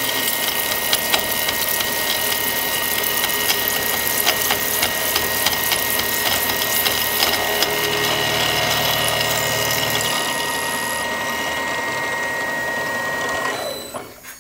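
CNC mill cutting a counterbore into 15-series 80/20 aluminum extrusion with a two-flute 13/16-inch end mill: a steady spindle whine over the noise of the cut, with frequent sharp ticks from flying chips. Near the end the cutting sound falls away quickly as the end mill lifts clear of the part.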